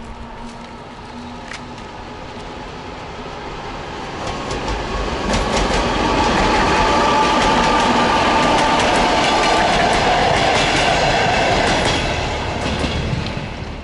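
EP2K electric locomotive with a track-measuring car running past close by, its wheels clicking over the rail joints. It grows louder from about four seconds in, stays loud through the middle and fades near the end.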